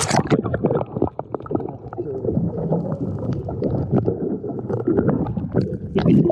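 Muffled water sloshing and gurgling heard through a GoPro held underwater, with scattered knocks and clicks. The sound turns dull right at the start as the camera goes under the surface.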